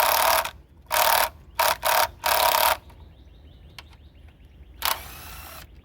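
Cordless impact wrench run in short bursts, spinning off the engine cover's 10 mm nuts: four quick bursts in the first three seconds and one more near the end with a clear motor whine. Faint clicking comes in between.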